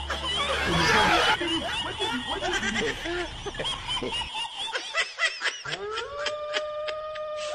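Laugh-track sound effect of snickering and giggling over frightened yelps, with a loud noisy burst about a second in; a long steady held tone rises in near the end.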